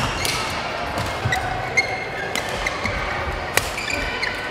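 Badminton rally in a large hall: several sharp cracks of rackets striking a shuttlecock, the loudest about three and a half seconds in, with short squeaks of court shoes on the floor between the hits.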